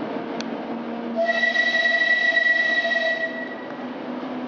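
Diesel shunter engine running steadily. About a second in, a high-pitched wheel squeal joins it, loud and steady for about two seconds, then stops.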